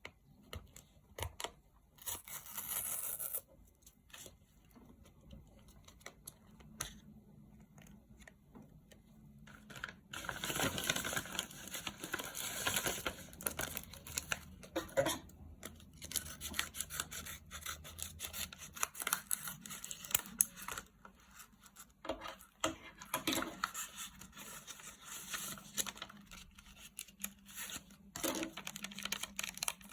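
Hubba Bubba gum packaging being torn open and handled: irregular tearing and crinkling with scattered sharp clicks, loudest in a stretch about ten seconds in.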